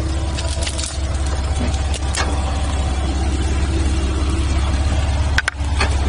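Off-road 4x4's engine running steadily at low revs, a constant low drone. A few knocks and clatters come through it, the sharpest about five and a half seconds in.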